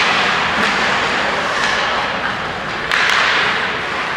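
Ice hockey play in an indoor rink: a steady noisy hiss of skates on ice and arena noise, with a couple of sharp clacks about three seconds in.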